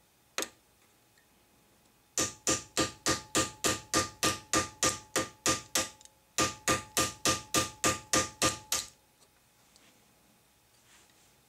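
Small hammer tapping a steel punch to drift the front sight out of a Kimber 1911 slide's dovetail, with a metallic ring on each blow. There is one tap, then two runs of evenly spaced strikes at about three a second, with a short pause between them. The sight is not budging.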